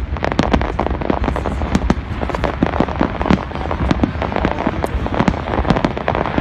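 Aerial fireworks display with shells bursting in rapid succession: several sharp bangs and crackles a second over a continuous low rumble.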